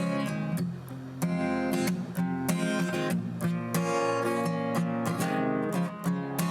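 Acoustic guitar strummed in a steady rhythm, moving through several chords.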